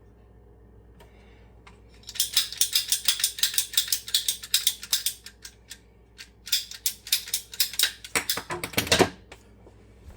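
Ratcheting PEX pipe cutter clicking rapidly as it is worked through the pipe, in two runs of about three seconds with a short pause between; the last second of strokes is louder and fuller.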